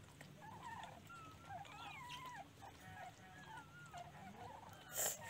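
Nursing puppies squeaking and whimpering: many thin, wavering high cries overlapping one another, with a short sharp noise near the end.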